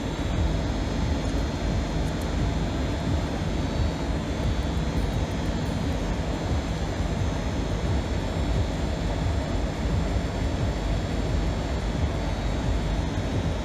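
Steady, unchanging background noise with a low rumble, workshop ambience from running machinery or air movement.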